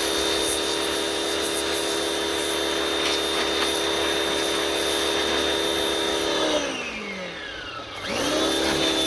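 Electric pressure washer running with a steady whine over the hiss of its spray as it blasts undercoating off the frame. A little over six seconds in the motor winds down as the trigger is let go, and about a second and a half later it spins back up as spraying resumes.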